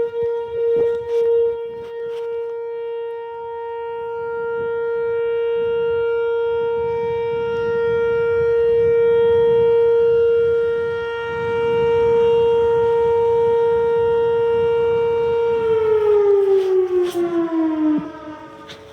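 Outdoor tornado warning siren sounding a steady single-pitch tone that swells and fades in loudness. Near the end it winds down, sliding lower in pitch as the test signal ends.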